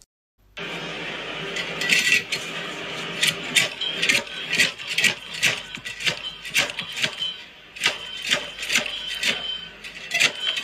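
Repeated metal clanks and rattles of a hand-lever commercial food cutter being worked, about two to three clanks a second, over steady background noise; it starts about half a second in.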